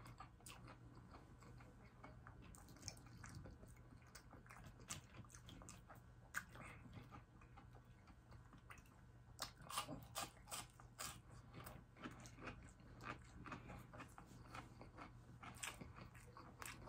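Faint close-up chewing and biting of crispy deep-fried battered shrimp and fish: irregular crunches, more frequent and louder from about halfway through. A steady low hum sits underneath.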